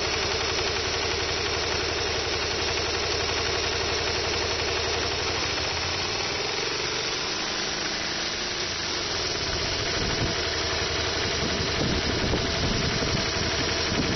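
Honda VT250 Spada's 250 cc V-twin engine idling at low revs with an abnormal mechanical noise, which the owner suspects is either tappet (valve clearance) noise or plain-bearing noise. The low engine note turns more uneven about ten seconds in.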